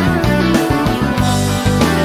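Background music led by guitar, in a rock style, playing continuously at a steady loud level.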